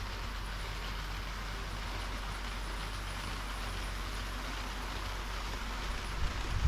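HO-scale model train running along the track: an even rolling hiss over a low, steady hum.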